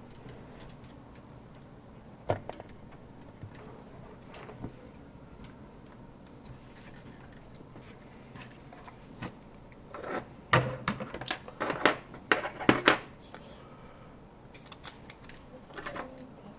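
Small hard objects clicking and clattering: a few scattered clicks, then a burst of quick sharp knocks about ten seconds in.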